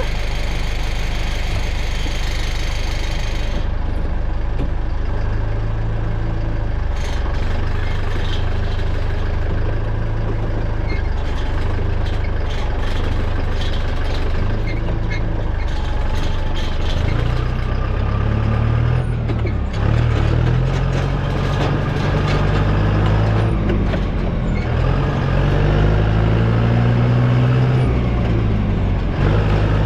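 Farm tractor engine running while driving, its pitch rising and falling in the second half, with scattered light knocks and rattles.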